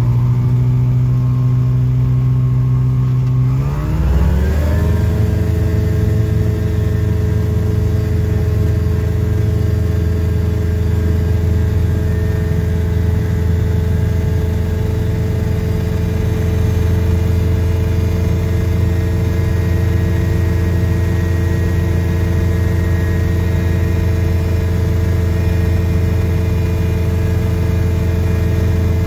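Small light aircraft's fan-cooled engine running up: its pitch rises quickly about four seconds in as the throttle opens for takeoff, then holds steady at high power through the takeoff run and climb.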